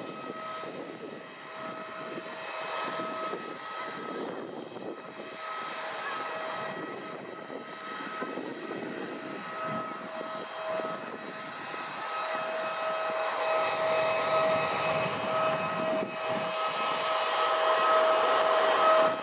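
Airbus A320neo jet's turbine whine during pushback by an apron tug: a steady two-tone whine over a rushing hiss, growing louder toward the end.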